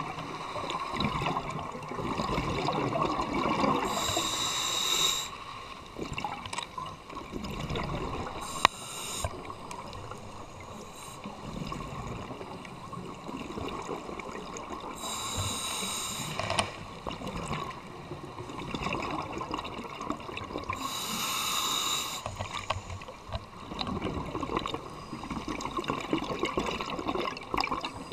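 Scuba regulator breathing heard underwater: a hissing inhale through the demand valve about every six seconds, five in all, with bubbly, gurgling exhalations in between.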